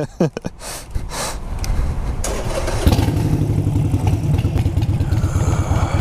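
Harley-Davidson Sportster V-twin being started: a click from the starter about two seconds in, the engine catching almost three seconds in, then running with an even low beat.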